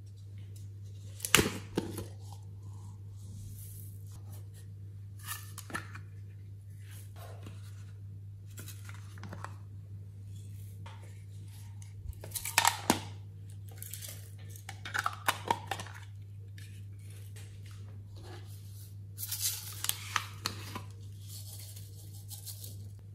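Hard plastic slime containers being handled: scattered sharp clicks and short scrapes, the loudest about a second in, near the middle and a few seconds before the end, over a steady low hum.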